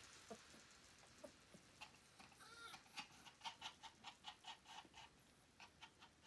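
A small maltipoo dog panting, faint and rapid at about five breaths a second, starting about two seconds in.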